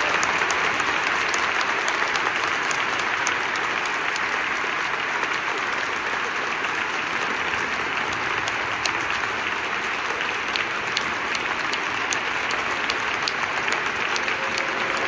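Audience applauding steadily, a dense, even clapping that neither builds nor fades.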